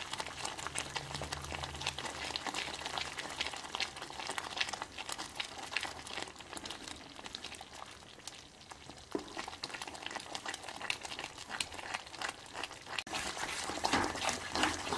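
Thick moong dal halwa mixture of milk, water and khoya bubbling and popping in a pan while a wooden spatula stirs it, with many small sharp pops. The mixture is thickening, the stage at which it starts to spit.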